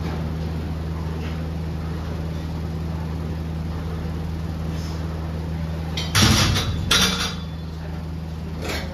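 A loaded barbell set back into the uprights of an incline bench press: two loud metal clanks about a second apart, each with a short rattle, over a steady low hum.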